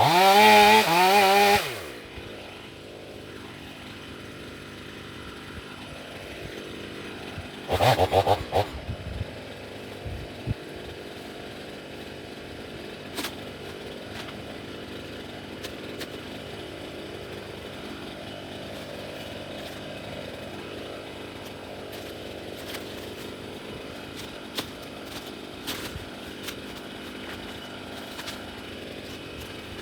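Fuel-injected two-stroke Stihl MS500i chainsaw with a 36-inch bar, revving hard in two short loud bursts, at the start and again about eight seconds in, then running much more quietly and steadily for the rest.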